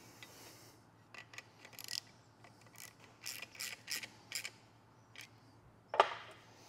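A run of short mechanical clicks and scrapes over a few seconds, then a single sharp knock near the end, the loudest sound.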